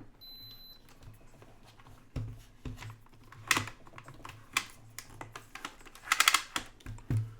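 A short, high electronic beep just after the start, then a run of sharp clicks, taps and knocks from equipment being handled and set up on a workbench, with a quick cluster of clicks about six seconds in.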